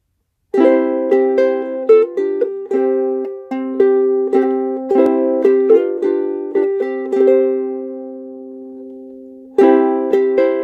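Solo ukulele playing a slow hymn tune, chords plucked one after another in a steady rhythm. About seven seconds in, one chord is left to ring and fade for about two seconds before the playing starts again.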